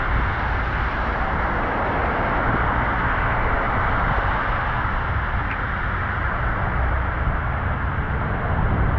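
Steady rain falling on a wide wet road and paving, with cars passing on the wet tarmac, their tyres hissing through the water.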